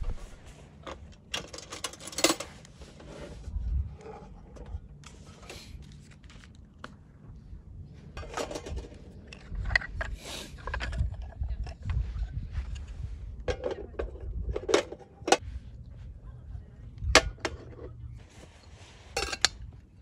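Camp cookware and utensils clinking and clattering as they are handled, in scattered sharp knocks, over a steady low rumble of wind on the microphone.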